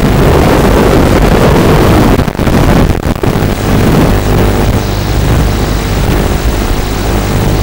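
Walkera F210 racing quadcopter's motors and propellers running, their pitch shifting up and down with the throttle, under a loud steady hiss. The sound dips briefly twice, around two to three seconds in.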